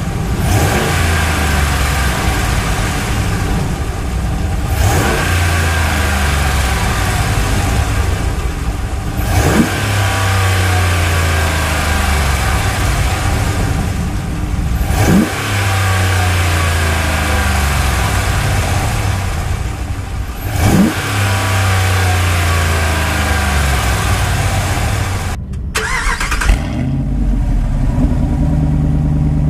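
Dodge Ram 1500's 5.7L HEMI V8 being revved in place with the exhaust cutout closed, so it breathes through the stock exhaust: about five revs a few seconds apart, each rising and then falling back. After a brief break near the end, it idles with the electronic exhaust cutout open, a deeper and steadier sound.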